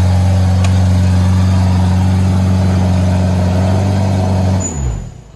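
A 4x4 SUV's engine held at steady high revs with its mud-terrain tyres spinning and flinging mud as it struggles up a slippery muddy climb. Near the end the revs drop and the engine sound dies away as the driver lets off.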